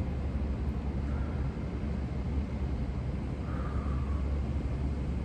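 Steady low outdoor rumble with an even background hiss, of the kind left by distant traffic or wind, with no distinct event.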